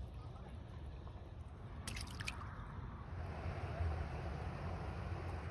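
A small hooked bass splashing at the water's surface as it is lifted out on the line, with water dripping and sloshing, a brief cluster of clicks about two seconds in and a steady low rumble underneath.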